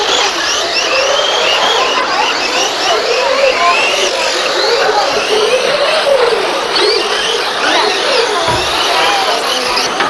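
Several radio-controlled model racing cars running at once, their small motors whining in overlapping tones that rise and fall as the drivers accelerate and brake.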